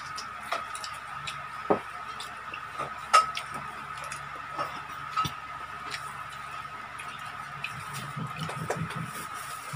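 Close-up eating sounds: chewing, lip smacks and small wet clicks as fried chicken is torn apart by hand and eaten, with a few sharper clicks, the loudest about three seconds in. A steady faint high tone runs underneath.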